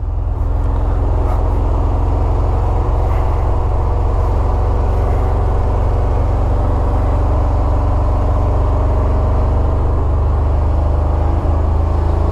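A 1982 Jeep CJ7's 5.7-litre V8 running steadily with a loud, low exhaust rumble through its modified exhaust.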